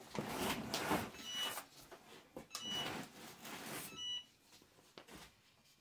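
Short beeps from an Epson EcoTank printer's control panel, one about a second in, another near three seconds and a quick run of tones near four seconds, over several brief bursts of paper rustling.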